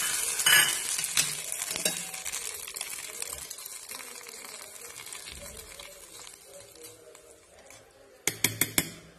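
Hot tempering oil with cumin seeds and curry leaves sizzling on peanut chutney in a steel mixer jar, the sizzle fading away over several seconds while a spoon stirs it in. Near the end comes a quick run of sharp metallic clinks.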